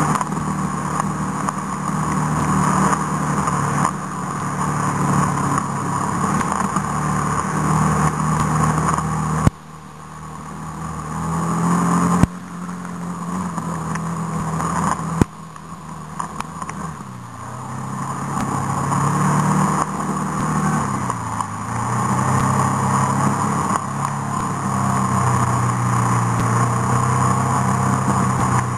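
An off-road vehicle's engine running under way on a rough dirt track, its note rising and falling with the throttle. Three sharp knocks come in the middle, each followed by a sudden drop in level before the engine pulls on again.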